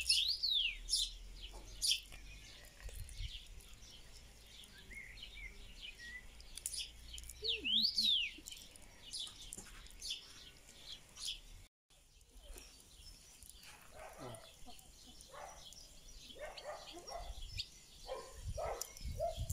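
Birds chirping and calling outdoors, with quick up-and-down whistled notes near the start and again about eight seconds in, and fainter chirps later.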